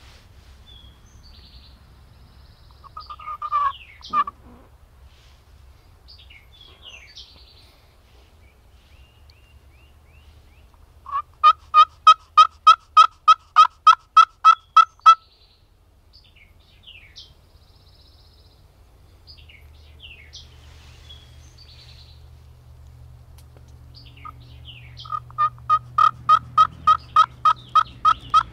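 Turkey yelping: a short call about three seconds in, then two long, even series of about fourteen yelps each, roughly three or four a second, the second starting near the end. Small birds chirp faintly throughout.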